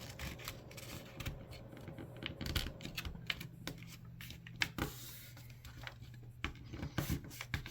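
Sheet of paper being folded and creased by hand, a paper airplane's side folded in against the middle crease: a string of irregular light crackles and taps, over a faint steady low hum.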